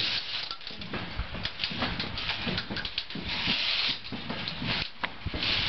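Climbers' footsteps and gear knocking on a steep stairway inside a rock tunnel: irregular clicks and knocks, with patches of hissing about halfway through and near the end.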